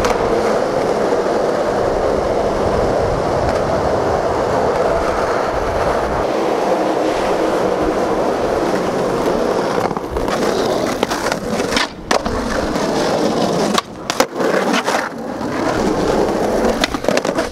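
Skateboard wheels rolling on smooth concrete, a steady rumble for about the first ten seconds. In the second half it is broken by several sharp knocks and brief drop-outs.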